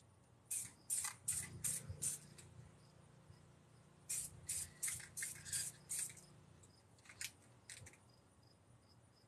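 Aerosol spray paint can fired in quick short bursts of hiss, about three a second: a run of five, then a run of six, then two more near the end.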